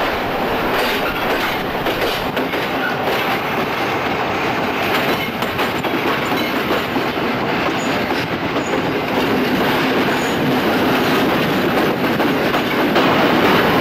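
Train running along the track: a steady rumble with the clatter of wheels over rail joints, growing a little louder past the middle.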